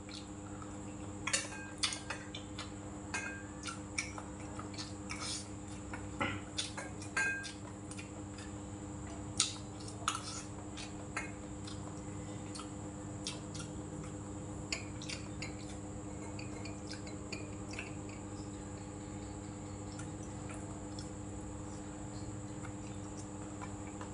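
Chopsticks and a spoon clicking and scraping against a stainless-steel rice bowl during a meal: scattered sharp clicks, busiest in roughly the first ten seconds and sparser afterwards, over a steady background hum.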